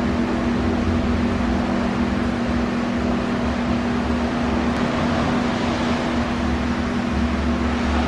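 Harley-Davidson Shovelhead 80-cubic-inch V-twin engine running steadily, with an even, unchanging note.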